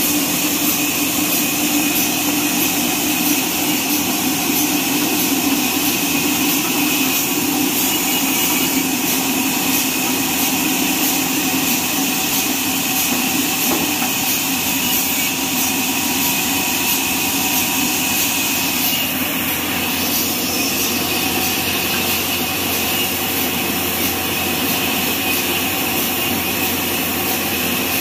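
Horizontal band sawmill running: its electric drive and band blade make a steady mechanical drone with a few held tones, dipping slightly in level about two-thirds of the way through.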